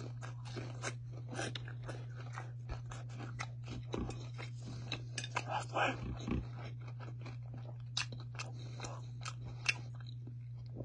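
A person chewing a crunchy fried chicken tender, with many small, irregular crunches and mouth clicks. A steady low hum runs underneath.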